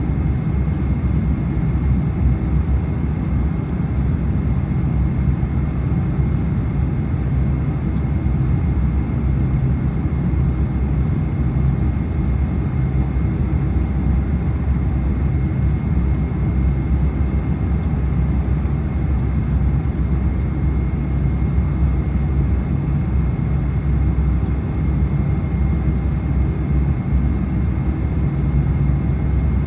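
Boeing 747-400 cabin noise in flight, heard from a window seat over the wing: a steady low rumble of jet engines and airflow with a faint steady high tone above it.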